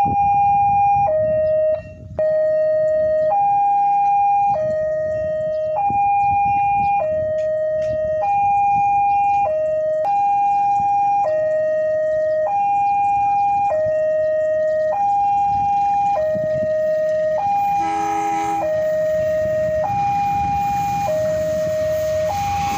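Railway level-crossing warning alarm sounding two alternating electronic tones, a higher one then a lower one, each held for about a second, warning of an approaching train. About eighteen seconds in, the approaching diesel locomotive gives a short horn blast.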